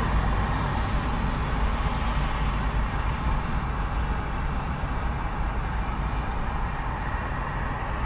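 Fairly heavy urban road traffic passing close by: a steady low rumble of engines and tyre noise. The hiss of a passing vehicle dies away over the first few seconds.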